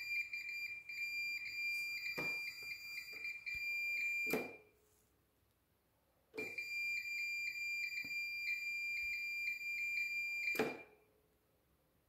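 Multimeter continuity buzzer giving a steady high beep through the KE-Jetronic idle micro switch. It cuts off with a click about four seconds in, comes back about two seconds later and cuts off again near the end. This is the switch opening as the accelerator lever leaves idle and closing again as it returns, as a working decel cut-off switch should.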